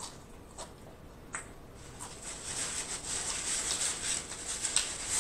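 Close-miked chewing of crispy fried food: a few separate crunches at first, then a denser, crackling run of chewing from about two seconds in.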